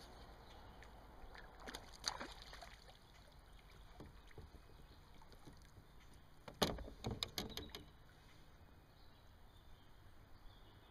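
Knocks and splashes of a largemouth bass being landed beside a kayak: a couple of sharp knocks about two seconds in, then a quick cluster of knocks and splashes past the middle as the fish is scooped into a landing net.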